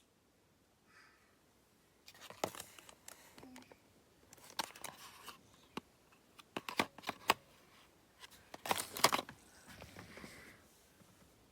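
Small objects being handled at close range: clusters of sharp clicks and short scraping, rustling noises, coming in bursts a couple of seconds apart.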